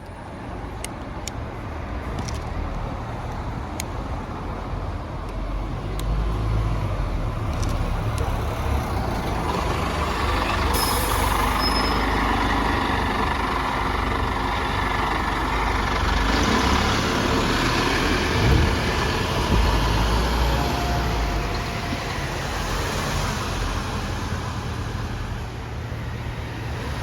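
Scania Enviro 400 double-decker bus pulling away from a stop. Its engine note builds for several seconds, then eases off, with a short hiss of air about ten seconds in.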